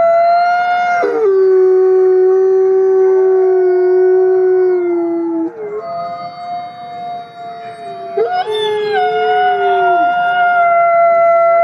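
Two wolves howling at once, holding long, steady notes at different pitches, one higher and one lower. The howls fade into a brief lull about six seconds in, then a new howl rises again about eight seconds in.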